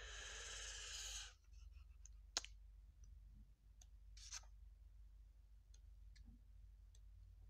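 Pages of a paperback comic book being turned by hand: a soft rush of noise over the first second, a sharp click a couple of seconds in, a short paper swish about four seconds in, then a few faint ticks of handling.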